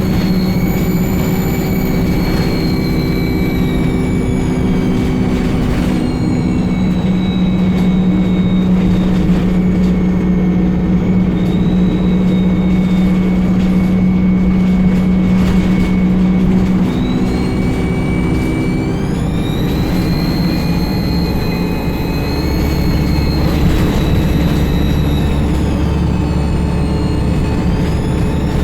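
ADL Enviro 200 (E20D) bus engine running with a loud turbo whine: a high whistle over a steady engine drone. The whistle falls away over the first several seconds, climbs again around twenty seconds in, and dips and rises once more near the end as the bus pulls away and eases off.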